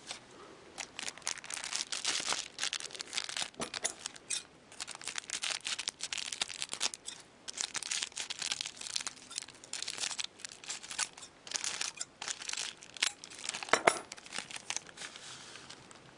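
Foil wrappers of trading-card packs crinkling and tearing as packs are opened, with a stack of cards being handled. The crackling comes in quick irregular bursts, with one louder click near the end.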